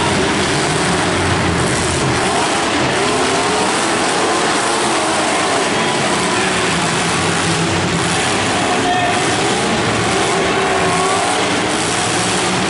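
Many demolition derby car engines running and revving at once, a loud continuous din with pitches rising and falling.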